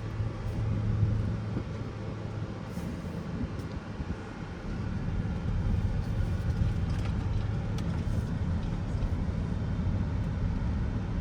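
Road and tyre noise inside the cabin of a moving 2016 Tesla Model X: a steady low rumble that grows a little louder about halfway through.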